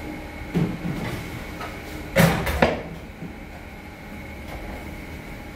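Steady machine hum of a commercial kitchen, with a short clatter of handling about half a second in and a louder clatter about two seconds in.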